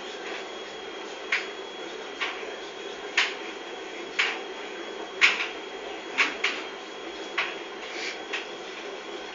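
A cat's paws and claws hitting a ceramic tile floor as it runs and pounces after a laser dot: about a dozen sharp, irregularly spaced taps over a steady low hum.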